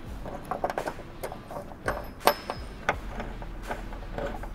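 Hand ratchet clicking in short, uneven strokes as bolts are tightened, with one sharper metallic click a little over two seconds in.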